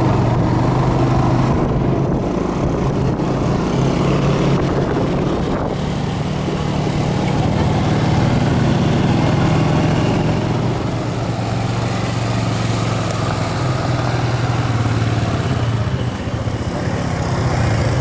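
ATV engine running steadily while riding along a dirt trail, a constant low hum with a brief dip near the end.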